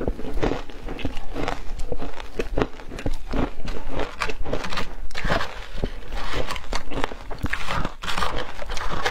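Crunching of shaved ice: a mouthful being chewed, then a metal spoon scraping and digging through the shaved ice in a plastic tub, as a dense run of short crackly strokes.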